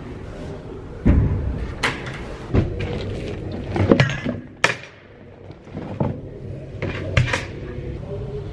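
Door latch and lock of a changing cubicle being turned, then a series of sharp knocks and bumps as things are handled and set down on the bench, the loudest a dull thump about a second in.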